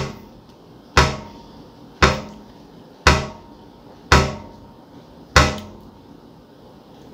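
A fist pounding on a tabletop in a series of heavy thuds about once a second, each with a brief ringing decay, as a show of relish at the taste.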